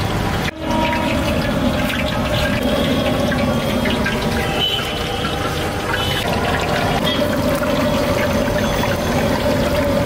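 Hot oil sizzling and crackling steadily in a wide frying pan as batter fritters deep-fry, with a brief break about half a second in.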